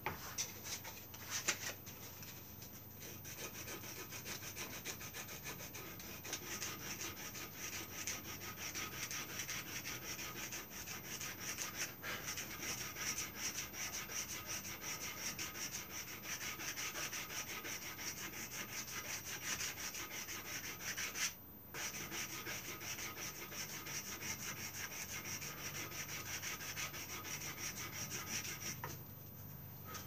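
Quick back-and-forth hand abrading of a carved wooden woodcock head held in a vise: a continuous scratchy rubbing that settles in about two seconds in and breaks off once, briefly, about two-thirds of the way through.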